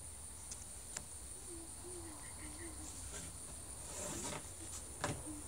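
Steady high-pitched drone of insects, with a couple of faint clicks and one sharper knock near the end.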